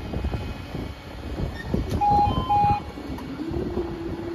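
Level crossing barriers starting to rise: two short, clear beeps about two seconds in, then the barrier machinery's motor starts a steady hum about a second later as the booms lift. Low rumble and wind noise run underneath.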